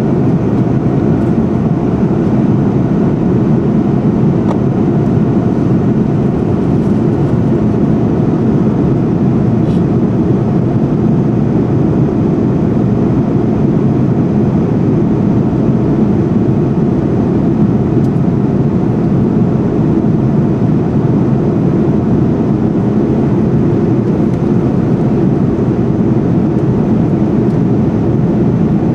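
Steady, even engine and airflow noise inside an airliner's passenger cabin in flight, heaviest in the low range, with no change in level.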